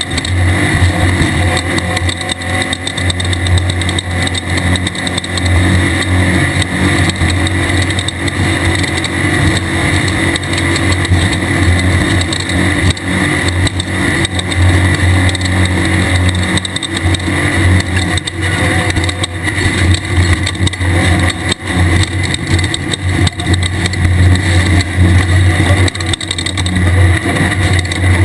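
Air-cooled VW 1600 engine of a Class 1/2-1600 desert race car running hard and steadily under load, over a dense clatter of road and chassis noise.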